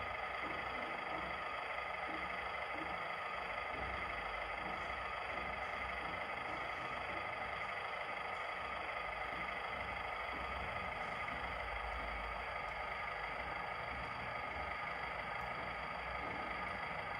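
Radio-controlled construction machine's electric motor and gear drive whining steadily, with a low rumble and faint clatter underneath.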